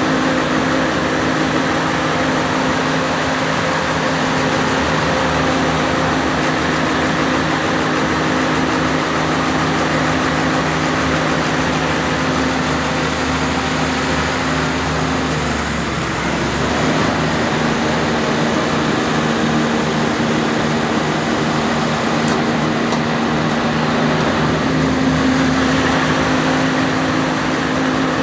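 Generator set's Perkins 1106 six-cylinder diesel engine running steadily, its note dipping briefly and recovering about halfway through. The engine is hunting, its speed unstable, which is to be cured by adjusting the droop on the injection pump.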